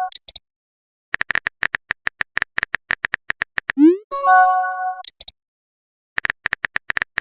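Looped electronic sound effects. A quick rising glide is followed by a short held synth chord and a few high blips, then a rapid run of sharp ticks. The sequence repeats about every three and a half seconds.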